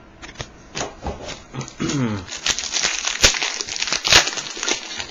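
A trading-card pack wrapper being crinkled and torn open: scattered crackles that become a dense crinkling from about two seconds in, with a short hummed voice sound just before.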